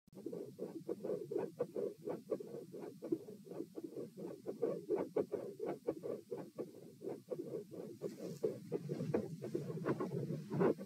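Heart sounds heard through a stethoscope at the tricuspid area: a steady lub-dub of the first and second heart sounds at about 84 beats a minute, with the subject lying at rest, over a low rumble of chest contact.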